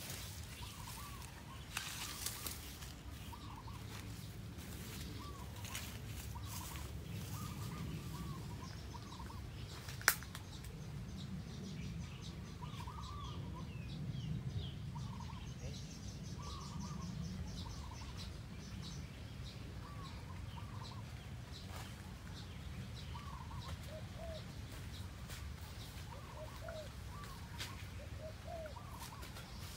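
Spotted doves cooing: short, curved coo phrases repeated every second or two, with a few lower coos near the end. One sharp click about ten seconds in, over a steady low rumble.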